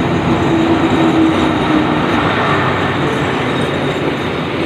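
Diesel-locomotive-hauled passenger train pulling into the platform close by: the locomotive passes, then the passenger coaches rumble along the rails. A steady hum sounds for about the first two seconds.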